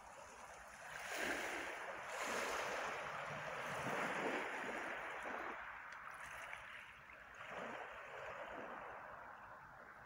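Small waves washing in over a pebble beach. One long wash swells about a second in and eases off after about six seconds, and a smaller one follows near the end.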